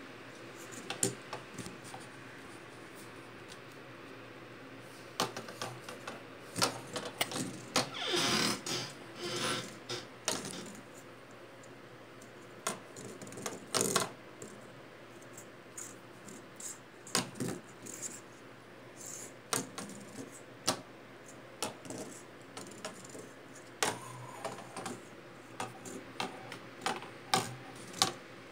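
A plastic fidget spinner batted about by a kitten's paws on a wooden desk: irregular clicks and knocks as it skids and bumps against the wood, with a longer rattle about eight seconds in.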